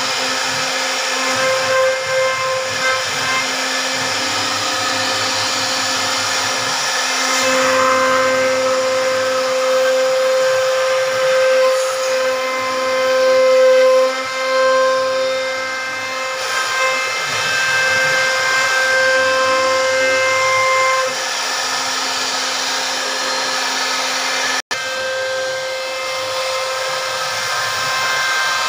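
CNC router spindle whining steadily as its bit carves a wooden frame, with a hiss of cutting that swells and dips as the load changes. The sound drops out for an instant near the end.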